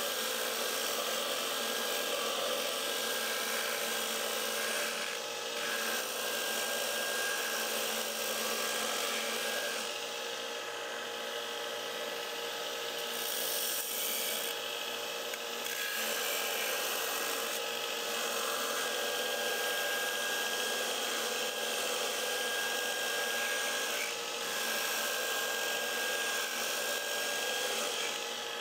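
Magna-Matic MAG-8200 water-cooled belt grinder with a 36-grit belt, running under load as a quarter-inch-thick steel mower blade is pressed against it: a steady motor hum with the rasp of steel being ground off, easing briefly now and then. It is hogging out a deep nick to bring back the cutting edge.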